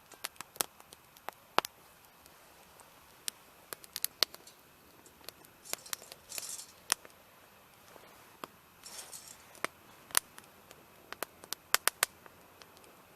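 Small wood cooking fire crackling, with sharp pops at irregular intervals and two brief hisses a few seconds apart.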